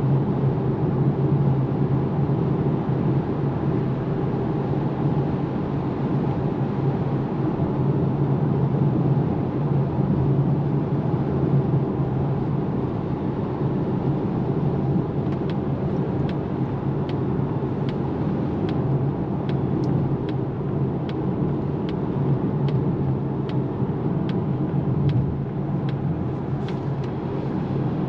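Steady tyre and road noise inside the cabin of a Polestar 2 Long Range Dual Motor electric car on the move, with no engine sound. From about halfway in, light ticks come roughly every three-quarters of a second.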